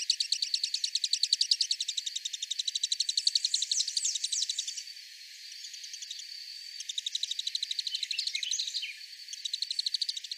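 Insects calling in trains of fast, evenly spaced high-pitched pulses, dropping back for a couple of seconds midway and then starting again, with fainter scattered chirps in the lull.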